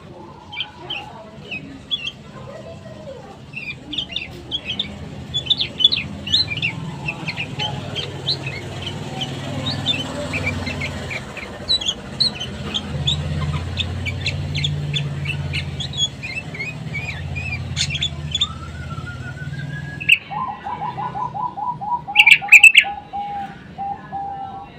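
Bulbuls, sooty-headed and yellow-vented, chirping in quick short notes over a low rumble. Near the end one gives a rising whistle, followed by a fast run of repeated notes with loud chirps on top.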